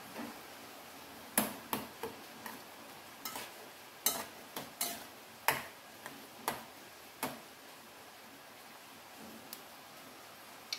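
A spoon clinking against the sides of a small stainless-steel saucepan while stirring seasoning into yam pieces and their cooking water: about a dozen irregular clinks over some six seconds, starting a little over a second in, with one last clink near the end.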